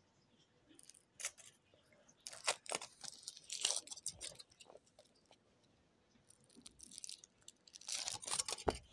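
Foil wrapper being peeled off a Kinder Surprise chocolate egg: crinkling and tearing in several short bursts, with a lull in the middle and another burst near the end.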